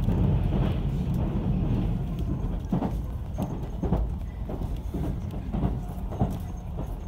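Inside the car of a JR Central 373 series electric train in motion. A heavy low rumble as it crosses a steel girder bridge eases off in the first seconds, then the wheels click over rail joints, several sharp clicks about half a second apart.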